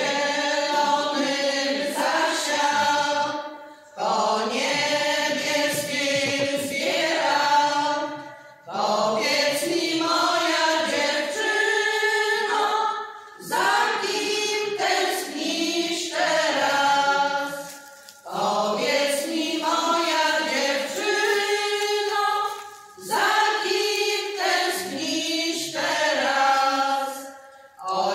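Women's folk singing group of about ten voices singing a Polish folk song a cappella, in sung phrases of about four to five seconds with short breaks for breath between them.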